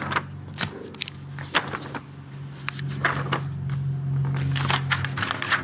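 Pages of a Bible being turned and handled on a lectern, a run of short papery rustles and clicks, over a steady low hum.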